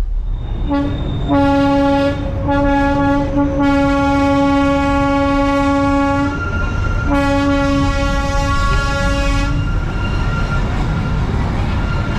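Darjeeling Himalayan Railway toy train's horn sounding: a few short toots about a second in, then a long blast, and after a brief pause a second, shorter blast, over the low rumble of the moving train.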